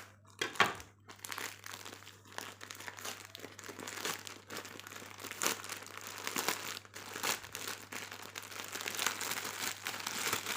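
Parcel packaging crinkling and rustling as it is handled, an irregular stream of crackles with a sharper crackle about half a second in.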